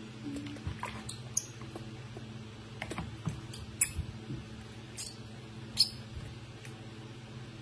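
Soapy water splashing and dripping in a plastic basin as a baby monkey is washed by hand: a handful of short, sharp splashes over a steady low hum.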